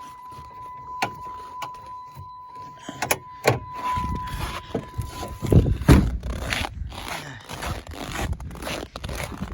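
Clicks, scrapes and knocks of someone working at a pickup truck, with a steady high tone that stops about five seconds in and a heavy thump just before six seconds.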